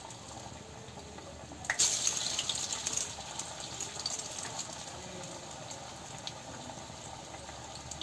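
Hot oil sizzling around urad dal vadas (minapa vadalu) deep-frying in a kadai. Nearly two seconds in, fresh batter goes into the oil and the sizzle jumps to a loud hiss, then settles into steady, vigorous bubbling.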